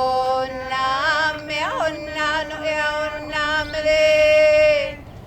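Ceremonial chant in long held tones, a lower voice sustaining beneath the main one. The phrase ends in a falling glide near the end.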